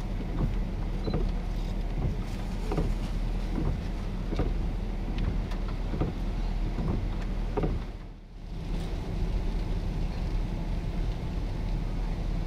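A vehicle's engine running steadily with a low hum, with wind noise on the microphone; the sound drops away briefly about eight seconds in.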